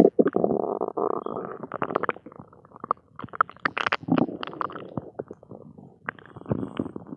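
Empty, gassy stomach growling and gurgling: an irregular string of bubbling rumbles, squelches and small pops, loudest in the first second or so and again around the middle.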